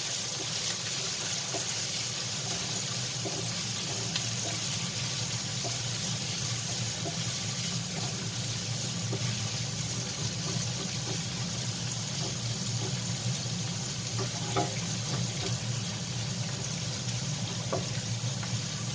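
Sliced onions, ginger and garlic sizzling in hot oil in a nonstick frying pan, a steady hiss, with soft scrapes and taps now and then as a wooden spatula stirs them.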